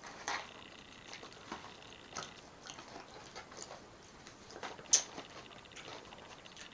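Close-up eating sounds: chewing with scattered sharp clicks and crackles, the loudest about five seconds in.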